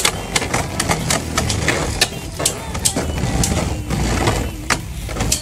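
Two Beyblade Burst tops spinning in a plastic stadium: a steady low whirr broken by frequent, irregular sharp clacks as the tops strike each other and the stadium wall.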